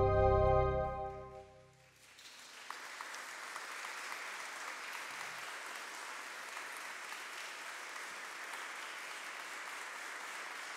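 The song's last held chord from the band fades away over the first couple of seconds. Then an audience applauds steadily.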